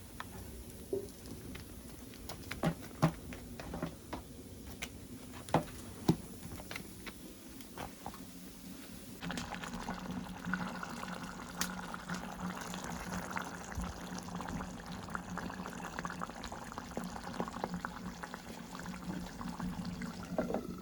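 Scattered clicks and knocks of kitchen work, then, from about nine seconds in, a steady liquid sound of pouring or bubbling.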